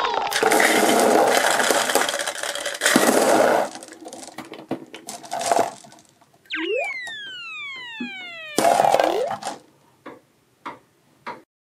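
Cartoon-style sound effects: a loud noisy stretch lasting about three and a half seconds, then a short rising swoop and a long tone gliding down in pitch, another short noisy burst, and three light clicks near the end.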